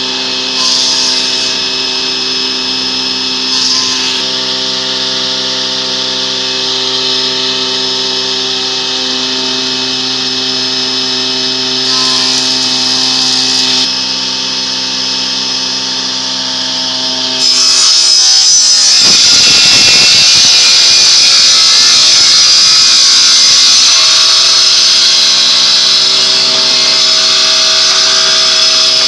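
Woodworking power tool running steadily with an even motor hum, with a few brief bursts of cutting noise. From a bit over halfway through it goes into a louder, harsher cut that lasts to the end.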